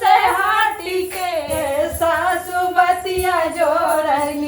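Women singing a dehati Awadhi folk song, holding long, wavering melodic notes between the lines of the refrain.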